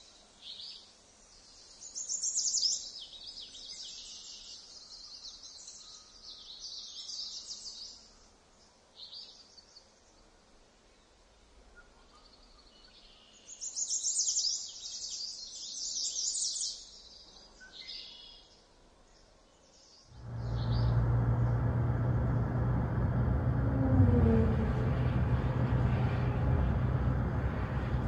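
Songbirds singing in short bursts of chirps over a quiet wooded background. About two-thirds of the way in it switches suddenly to the steady road and engine noise of a moving pickup truck, with a low hum underneath.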